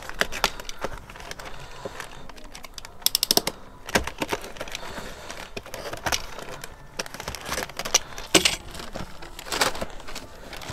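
Plastic courier mailer bag being slit with a snap-off utility knife and torn open by hand: an irregular run of sharp crackles, rustles and tearing.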